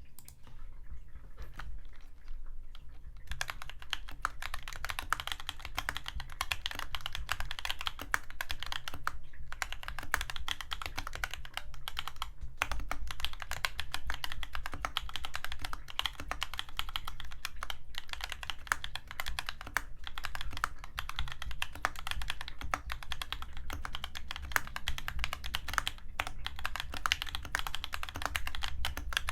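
Fast, continuous typing on a DNA65 acrylic-case mechanical keyboard with Gateron Yellow linear switches, double-shot keycaps and PE foam dampening. The typing starts in earnest about three seconds in.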